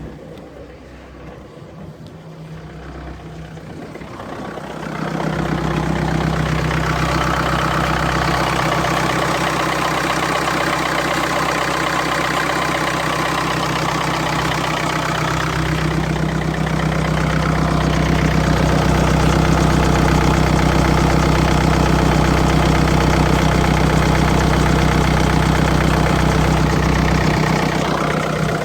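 BMW N47 four-cylinder diesel engine running at idle, with the noise of a worn timing chain, which the owner takes for a failing chain. It gets louder about five seconds in and a little louder again around sixteen seconds in.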